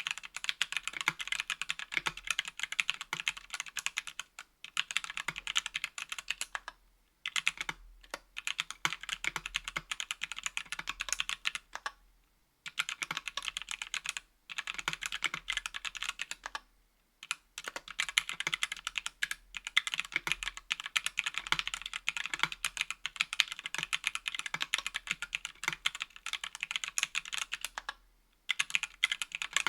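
Fast typing on a 60% aluminum mechanical keyboard (KBDfans Tofu) with Everglide Oreo tactile switches and GMK keycaps: rapid keystroke clicks in bursts of a few seconds with short pauses between them.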